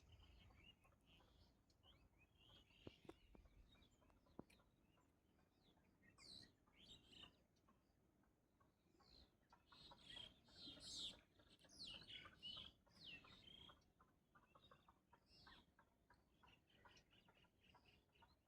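Faint outdoor bird calls: short, quick, falling chirps come and go, busiest about two-thirds of the way through. Two sharp ticks sound a few seconds in.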